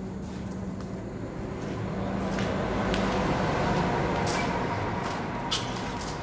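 A vehicle passing on the street outside, its noise swelling to a peak about halfway through and then fading, over a steady low hum, with a few light clicks.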